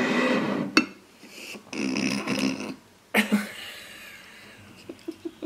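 A rasping, burp-like sound, then two women breaking into laughter that turns quiet and breathy near the end.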